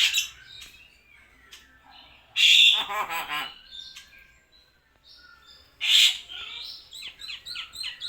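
Hill myna calling between its mimicked words: a loud, harsh squawk about two and a half seconds in and another about six seconds in, with a run of quick repeated chirps near the end.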